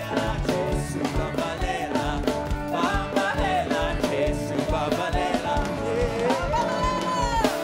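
Live gospel worship music from a band with a steady beat and a sung melody, a long note held near the end.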